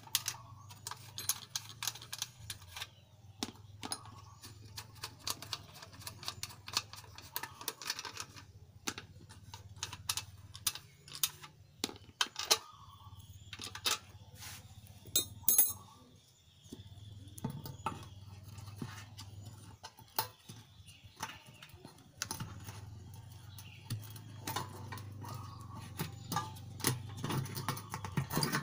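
Irregular small metallic clicks and clinks, with plastic knocks, from hand-unscrewing the fuel pump's mounting nuts on a motorcycle fuel tank, setting the nuts down, and working the fuel pump assembly loose.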